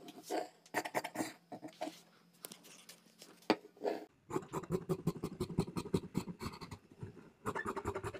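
Scissors cutting through cloth to cut out a blouse back piece: a string of quick, repeated snips that thin out near the middle, with one sharp click, then pick up again.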